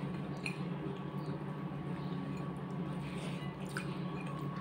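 Soft wet squishing and a few small clicks of rice and curry being mixed by hand on ceramic plates, over a steady low hum.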